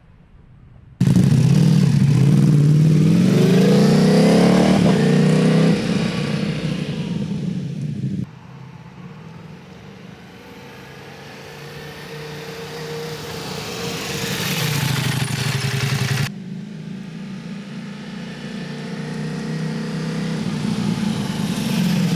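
Ducati Multistrada V4 S's V4 engine through an Akrapovic race exhaust, revving hard with its pitch climbing under acceleration after a quiet first second. Two abrupt cuts follow, each starting a quieter passage that swells steadily louder as the bike accelerates.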